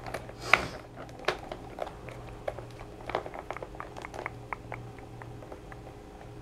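Light, irregular clicks and taps from small plastic toys being handled, about a dozen over a few seconds, with a steady low hum underneath.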